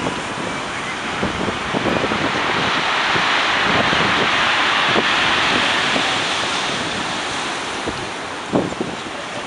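Rough storm sea breaking and surging against a seawall and under a pier. The wash swells about two seconds in and eases toward the end, with gusts of wind buffeting the microphone.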